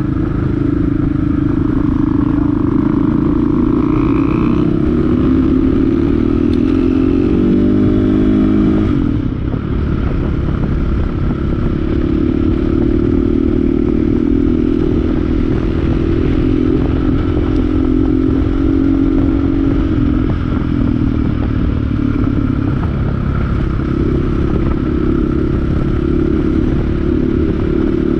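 Dual-sport motorcycle engine running under way. Its pitch climbs for a few seconds, drops sharply about nine seconds in, then holds fairly steady with small rises and falls.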